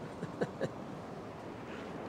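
Surf washing onto the beach with wind on the microphone, a steady hiss of noise. Two short pitched sounds stand out briefly about half a second in.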